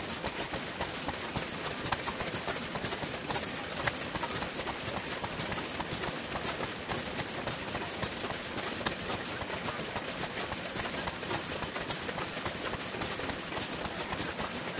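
Several vintage Japanese stationary kerosene engines running together, their overlapping exhaust pops and clatter making a dense, irregular patter of sharp knocks.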